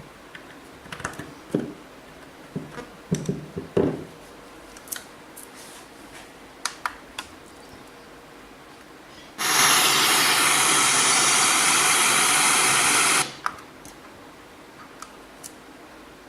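Clicks and light knocks of buttons being pressed and the small portable speaker being handled, then about four seconds of loud, steady hiss that starts and cuts off suddenly: radio static as the speaker's FM radio sits between stations.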